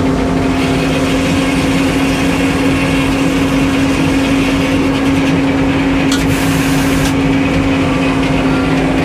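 Sawmill engine running steadily at a constant speed with one strong held tone, and a brief hiss about six seconds in.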